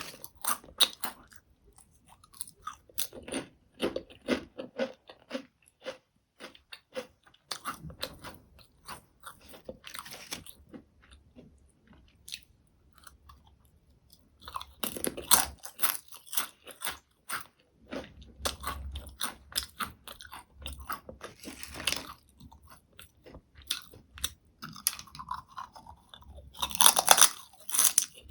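Potato chips being bitten and chewed close to the microphone: bursts of sharp crunching that come and go between quieter stretches.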